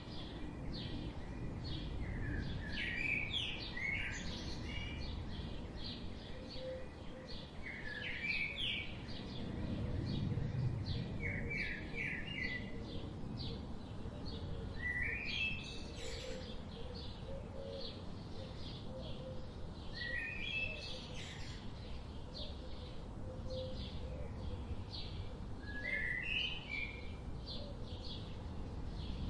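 Several wild birds chirping and singing, short high chirps throughout, with one bird repeating a brief rising phrase every few seconds, over a steady low rumble of background noise.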